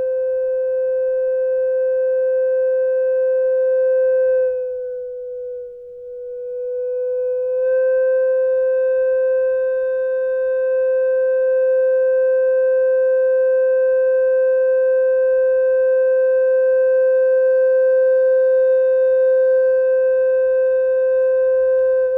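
Glass-tube thermoacoustic engine, its hot end heated by an induction coil, humming a loud steady tone of about 500 Hz with fainter overtones. About four seconds in the tone weakens and sags slightly in pitch for a few seconds, then comes back strong and holds steady.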